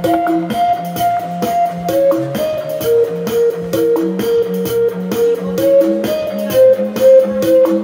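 Instrumental music with a guitar melody over a steady beat, playing loudly through a Philips MMS 3535 F 2.1-channel speaker system with subwoofer.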